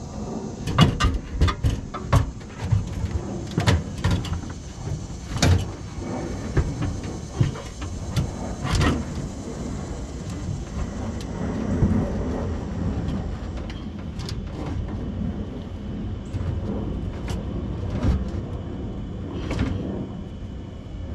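Knocks, clunks and scrapes as a new aftermarket fuel tank is worked up into place under a car. There is a quick run of sharp knocks in the first several seconds, then scattered ones over a steady background noise.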